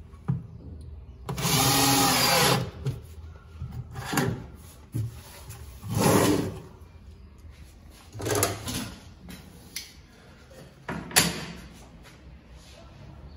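Bosch cordless drill-driver driving screws to fix steel telescopic drawer slides into a cabinet side, in several short bursts of motor whine, the longest about a second and a half in and lasting about a second. Between the bursts come clicks and clinks of screws and metal slides being handled.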